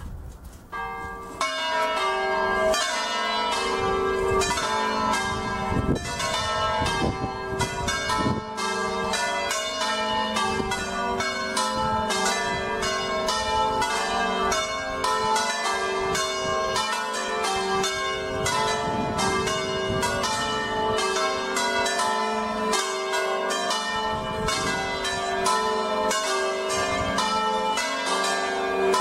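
A ring of five electrified church bells tuned to a G major scale, rung Veronese-style, starting about a second in and then striking in quick, continuous succession so the notes overlap. Wind buffets the microphone at times under the bells.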